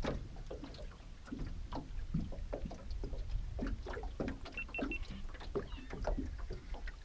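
Water lapping and slapping against the hull of a small fishing boat, with scattered knocks and a steady low rumble. Three short high beeps come quickly one after another about four and a half seconds in.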